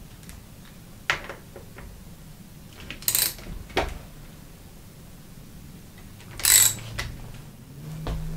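Small metal tool and V-brake hardware clinking while a bicycle brake pad is held and tightened down: a few separate clicks, with louder metallic rattles about three seconds in and again past six seconds.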